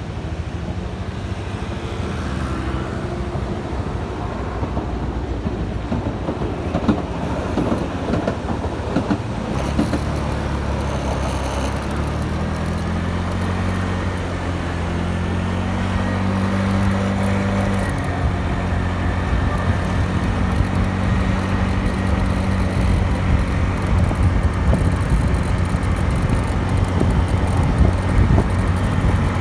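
2018 Suzuki Address 125 scooter's single-cylinder four-stroke engine running through its stock exhaust, a steady hum that rises in pitch for several seconds around the middle and grows louder toward the end.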